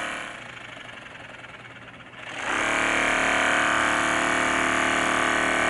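TIMTAM Power Massager Pro massage gun running its Recovery program, its percussive motor giving a steady buzz. The buzz is faint at first and grows louder about two and a half seconds in, then cuts off suddenly.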